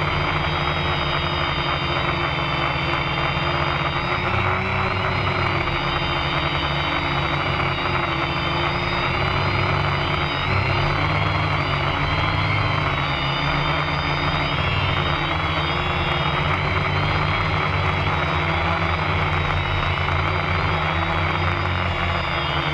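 Electric motor and propeller of a Quanum Venture FPV plane, recorded by its onboard camera in flight: a steady whine whose high tones waver slightly up and down with throttle, over a constant low hum and rushing air.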